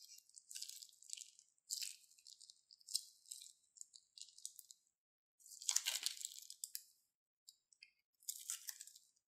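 Small clear plastic zip-lock bag crinkling in irregular bursts as it is squeezed and shaken to empty it, the loudest crackle about six seconds in.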